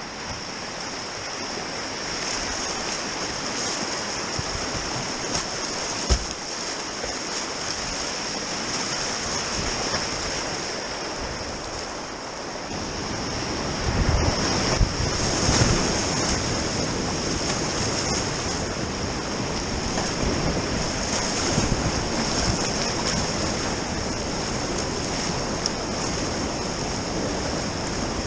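River water rushing in a steady wash that swells louder about halfway through, with a single sharp knock about six seconds in.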